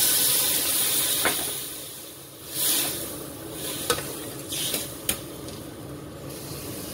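Water poured into a hot metal wok of dry-sautéed chicken, sizzling and hissing and dying away over the first couple of seconds. A metal spatula then stirs the broth, scraping and tapping against the wok with a few sharp clicks.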